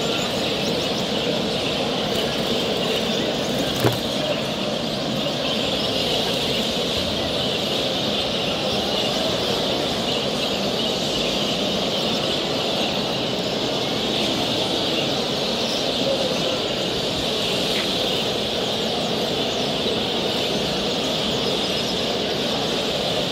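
Steady din of many caged canaries and finches chirping and singing at once, filling the hall, with a single sharp click about four seconds in.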